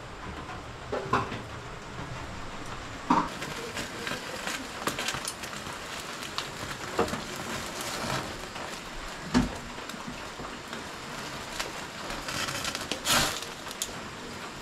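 Gas stove burner hissing while a whole chicken is singed over its flame, with scattered small crackles and a few louder knocks.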